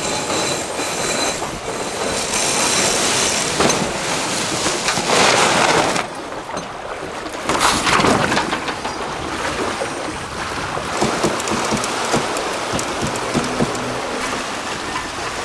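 Wind buffeting the microphone and water rushing along the hulls of a small catamaran under sail, with two stronger gusts about five and eight seconds in.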